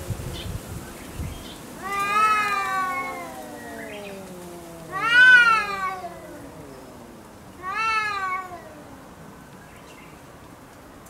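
Cats yowling at each other in a territorial stand-off before a fight. There are three drawn-out yowls that rise and fall in pitch, about two, five and eight seconds in, the middle one loudest, over a long low growl that slowly sinks in pitch.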